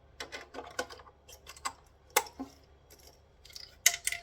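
Irregular light clicks and taps of a circuit board and small parts being handled, with a sharper click about two seconds in and a quick cluster of clicks near the end.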